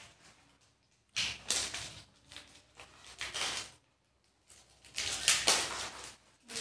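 Crinkling and rustling of plastic biscuit wrappers being handled and opened, in three irregular bursts.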